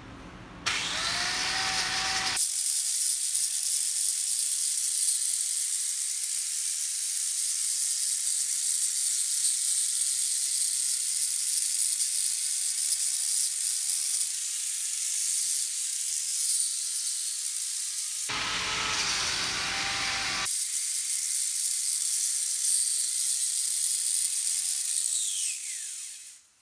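Electric grinder running on steel: it spins up about a second in, runs steadily with a high hiss, and winds down in pitch just before the end.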